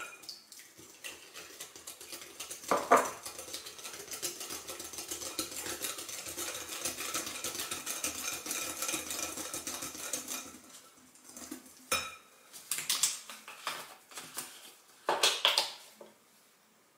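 Wire balloon whisk beating eggs into a custard base in a glass bowl: a rapid, steady clinking and scraping against the glass that stops about ten seconds in. A few separate knocks and handling sounds follow.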